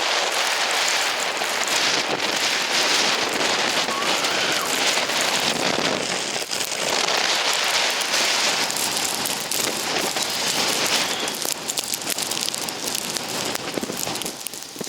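Gusting blizzard wind with blowing snow: a dense rushing hiss peppered with fine crackling ticks, easing somewhat over the last few seconds.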